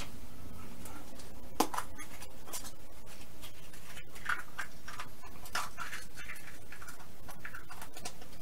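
Hinged plastic Easter eggs being handled, opened and snapped shut, giving a run of irregular light plastic clicks and scratchy rustles, with one sharper click about one and a half seconds in.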